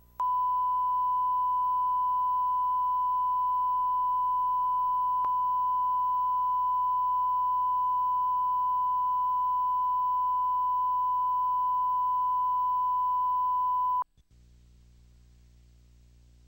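Steady 1 kHz line-up test tone sounding with SMPTE colour bars on a videotape. It cuts off suddenly about fourteen seconds in, leaving only a faint low hum.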